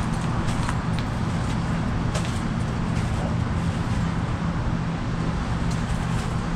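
A motor running with a steady low hum, with a few faint ticks over it.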